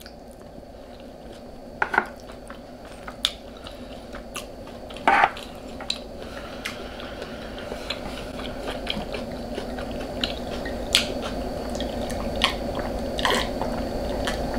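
Close-up chewing and biting of food, with scattered sharp mouth clicks and crunches. A steady background noise grows gradually louder throughout.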